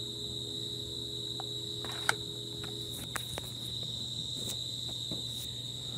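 Crickets trilling steadily in one continuous high-pitched tone, over a low steady hum, with a few faint clicks.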